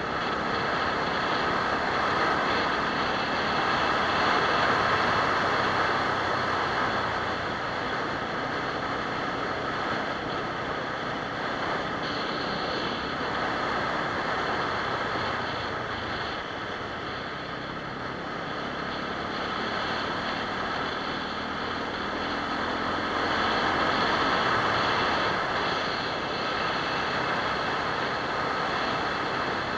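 SWM RS650R single-cylinder motorcycle riding on a gravel road, heard as a steady rush of wind and road noise over the engine on an action camera's microphone. The noise swells louder twice.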